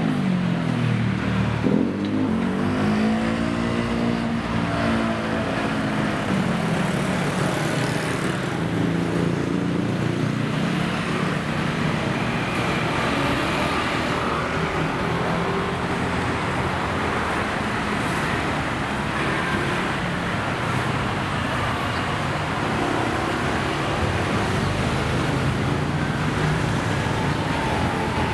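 Road traffic running steadily, with one motor vehicle's engine dropping in pitch and then rising again in the first few seconds.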